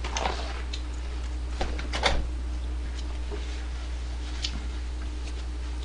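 A few short rustles and crinkles of a paper tissue being handled and wiped across greasy hands and mouth, the strongest about two seconds in, over a steady low electrical hum.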